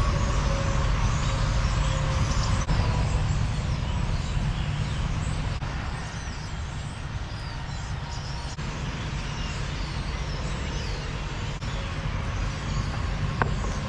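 Car travelling on the highway: a steady low rumble of engine and tyres with a hiss of road and wind noise, easing a little about halfway through.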